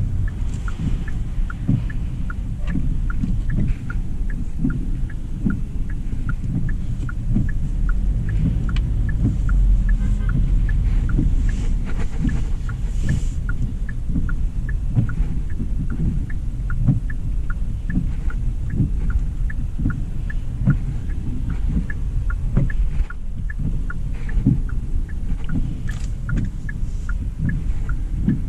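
2025 Hyundai Elantra SEL driving on a wet road: a steady low rumble of road and tyre noise with uneven low thumps, and a light, regular ticking about twice a second.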